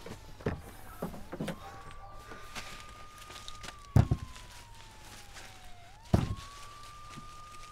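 Police siren wailing: a single tone that rises quickly, holds, slides slowly down, and rises again about six seconds in. Over it come a few heavy thumps, the loudest about four seconds in and just after six, as the car's boot is opened and a holdall inside it is handled.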